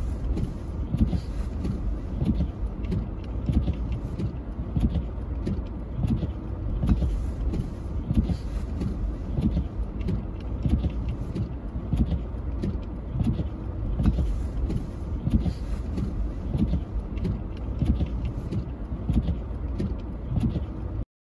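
A car driving on snow, its engine and tyres making a steady low rumble, with short irregular crunches or knocks about twice a second.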